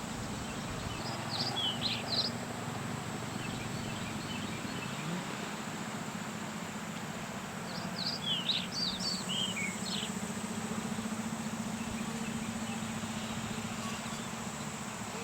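Birds chirping outdoors in two short flurries of quick high notes, one about a second in and another around the middle, over a steady low hum.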